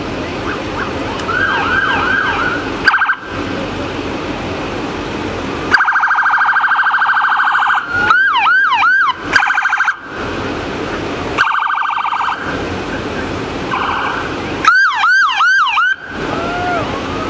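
Police cruiser sirens sounded in short bursts as a line of patrol cars drives past: fast warbling blasts alternating with runs of about four quick up-and-down yelps, over the noise of the passing vehicles.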